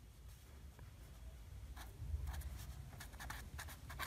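Pen writing on paper: clusters of quick short strokes from about two seconds in, over a low steady hum.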